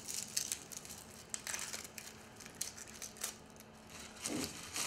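Dry, papery onion skin crackling and tearing in irregular bursts as a large yellow onion is peeled by hand.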